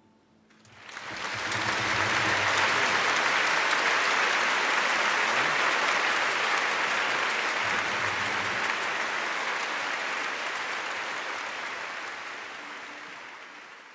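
Audience applauding: dense clapping swells in within the first second or two, holds steady, then fades away near the end.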